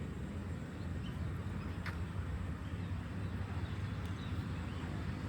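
Outdoor park ambience: a steady low rumble with a few faint bird chirps, and one short sharp sound about two seconds in.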